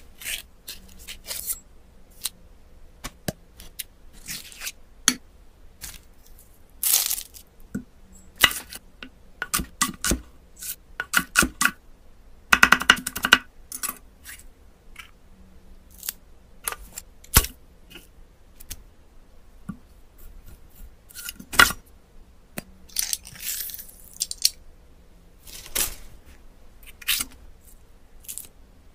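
Close-up handling sounds of hands working small objects on a wooden table: scattered clicks, taps and knocks, with a few short rasping and tearing sounds.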